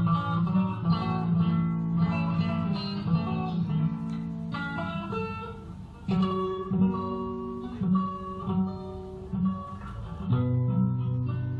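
Acoustic guitar music: a slow piece of plucked and strummed chords that ring out, with new chords struck every few seconds.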